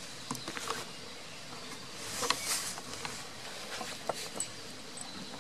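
Small clicks and rustles close to the microphone as a goat noses at it, with a louder rush of noise about two seconds in.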